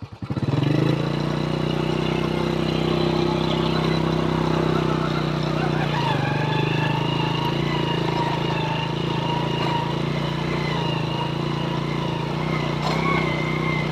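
An engine running at a steady speed: an even hum, with a fainter higher whine joining about six seconds in.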